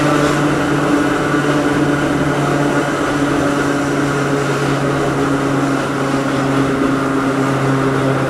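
Hakone Tozan Railway Moha 1-class car's nose-suspended (tsurikake) traction motors and gears humming at a steady pitch, with wheel-on-rail noise, heard from inside the car. The low hum cuts off near the end.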